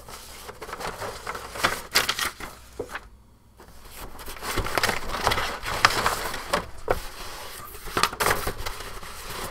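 Large paper plan sheets rustling and crinkling as they are unfolded and shuffled by hand: a run of short, irregular rustles, with a brief lull about three seconds in.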